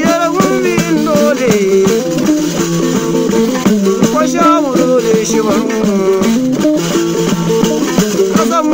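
Folk music: gourd-bodied string instruments playing a melody that slides in pitch, over a steadily shaken rattle.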